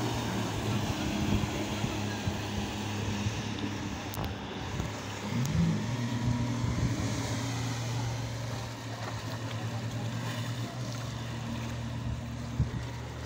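Motorboat engine running at a steady pitch, with wind and rushing water.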